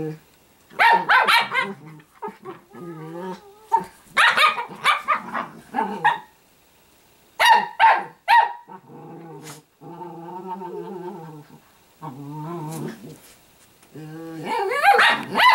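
Italian greyhounds growling and barking while play-fighting: loud sharp bouts of barking alternate with lower drawn-out growls, and the barking flares up again near the end.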